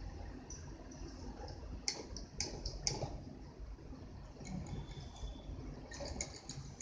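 Light clicks and taps from working on a vintage Singer sewing machine: three sharper clicks about two to three seconds in, fainter ones after, and a quick cluster near the end, over a low steady rumble.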